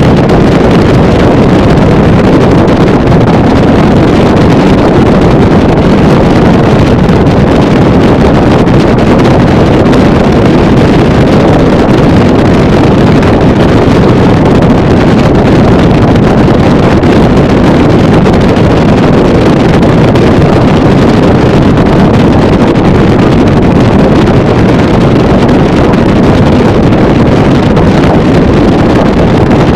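Motorboat cruising at speed, about 40 mph: a steady, loud rush of engine, hull on water and heavy wind buffeting the microphone, with no change throughout.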